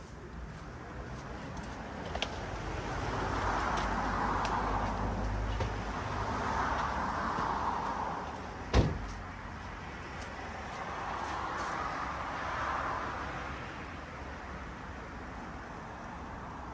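Road traffic passing, swelling and fading three times. About nine seconds in comes a single loud thump: the Honda Clarity's trunk lid being shut.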